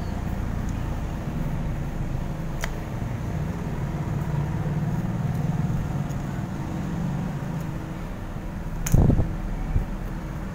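Steady low rumble of background noise, with a faint click about two and a half seconds in and a dull thump near the end.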